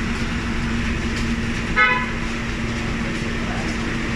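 A single short vehicle horn toot about two seconds in, over a steady hum and background noise.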